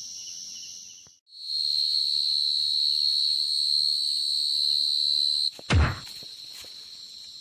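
Field cricket (dế mèn) calling close by in a loud, steady, unbroken high trill, starting about a second and a half in. Near the end a sudden low thump on the ground breaks in, after which the trill carries on fainter.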